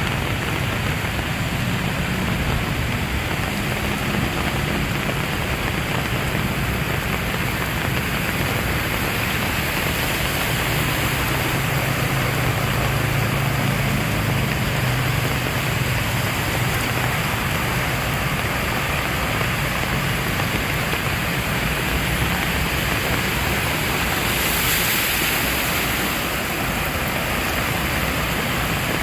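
Heavy rain falling steadily, an even dense hiss, with a low rumble underneath through the first half. The hiss swells briefly about 25 seconds in.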